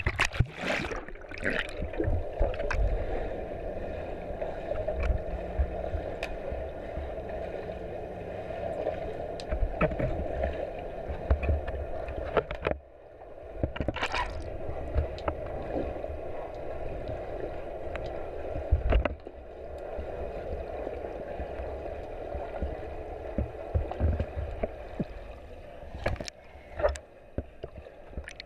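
Pool water heard through an action camera's sealed underwater housing: a steady, muffled rush with irregular low thumps from swimmers moving nearby. A few brief, sharper splashes break through near the start, about halfway, and near the end.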